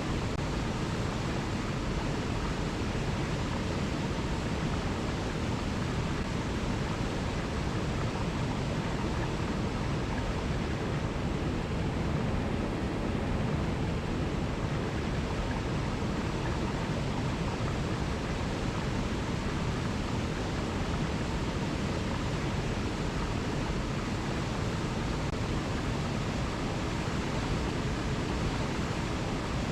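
Alpine mountain river rushing over cascades: a steady, even wash of water noise, heaviest at the low end, with no breaks.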